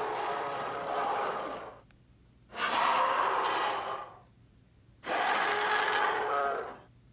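Dinosaur roar sound effect for a Baryonyx played three times: rough, noisy roars of about two seconds each, with short gaps between them.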